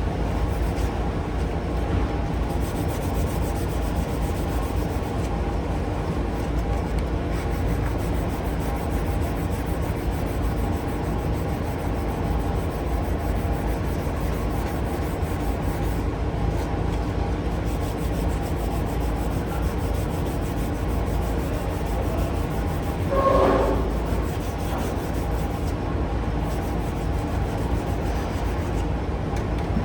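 A machine runs steadily with a rubbing, grinding sound, holding several fixed tones, and gives a short rising whine about three quarters of the way through.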